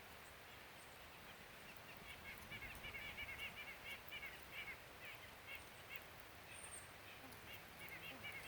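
Faint calls of a flock of birds, many short overlapping calls in quick succession, starting about two seconds in over a steady outdoor hiss.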